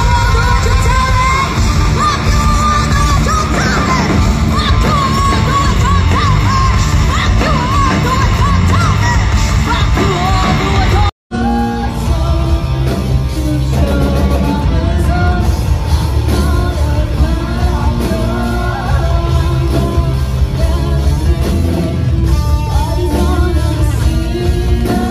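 A live metal band playing loud distorted electric guitar, bass and drums, with a lead voice singing and yelling over it. The music breaks off abruptly about eleven seconds in and jumps straight into another passage.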